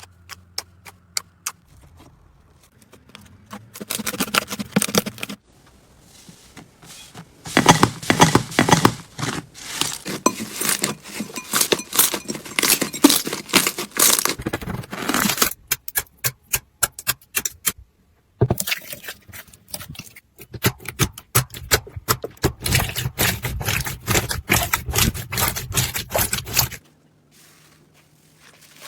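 Slime being squeezed and pressed by hand, a dense run of crackling clicks and pops, broken by short pauses twice and stopping shortly before the end.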